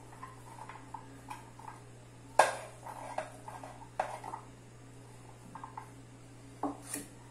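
Sliced onion being scraped off a ceramic plate into a metal baking pan: soft handling noise with a few sharp knocks and clinks of the plate and hands against the pan, the loudest about two and a half seconds in.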